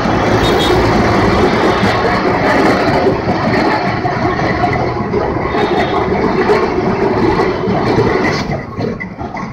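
Kolkata tram car running along street rails, its wheels rumbling and clattering, heard from inside the car. The noise eases near the end.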